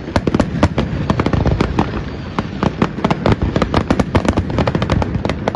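Fireworks display: a rapid, dense barrage of sharp bangs and cracks, several to many a second, over a low rumble of booms.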